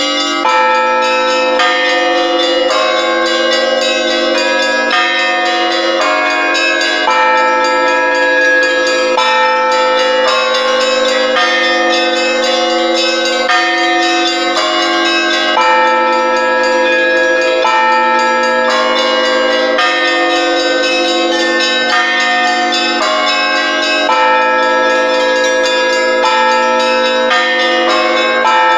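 Orthodox church bells rung all together in a trezvon, loud: the smaller bells strike a steady, repeating pattern, a new stroke every half second or so, over the long ring of the larger bells.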